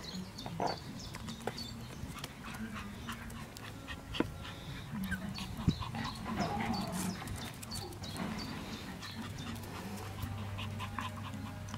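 Shiba Inu puppies, four weeks old, playing around an adult dog, with soft whimpering and many small scattered clicks.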